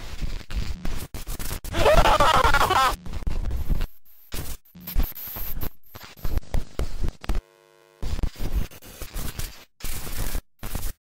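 Glitch and static noise effects, chopped into abrupt stutters and dropouts. A brief warbling, garbled voice-like sound comes about two seconds in, and a short faint buzzing tone comes near the middle.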